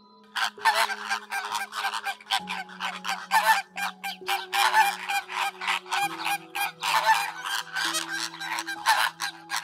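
A group of flamingos honking, goose-like calls coming rapidly, about three or four a second, starting about half a second in.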